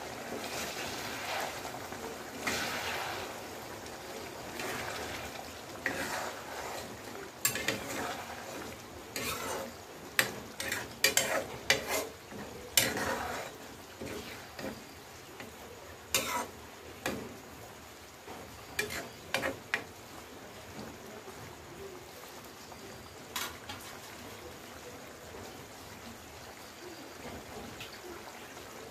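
A steel ladle stirring a pork and potato curry in a metal wok, with scrapes and clinks against the pan coming in clusters through the middle, over the steady hiss and bubbling of the simmering gravy.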